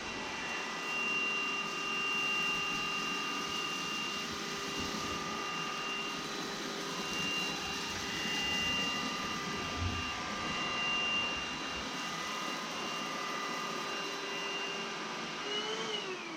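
Proscenic P8 cordless stick vacuum running on low power while it is pushed back and forth over a low-pile rug. Its motor gives a steady whine, then winds down near the end as it is switched off.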